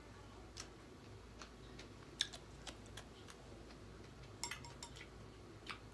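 Quiet eating sounds of a seafood boil: scattered sharp clicks and smacks as the food is picked apart and eaten, the loudest a little past two seconds in and a short flurry about four and a half seconds in.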